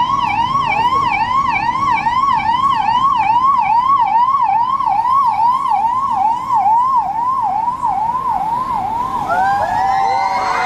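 Vehicle siren sounding a fast up-and-down yelp, about three sweeps a second, with a second siren overlapping near the end.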